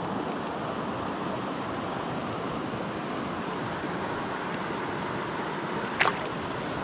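Mountain stream running steadily over rocks close by. Near the end a short splash comes as a hand lets a cutthroat trout go in the water.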